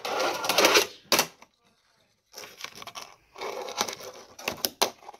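Fingerboard rolling on a desktop ramp, its small wheels rumbling, broken by sharp clacks of the board hitting the ramp: one about a second in and several more near the end.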